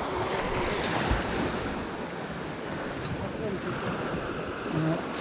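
Sea waves washing on a rocky shore, with wind buffeting the microphone.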